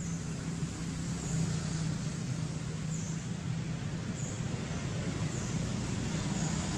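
A steady low hum like a distant motor, with a short high chirp repeating about every second or so.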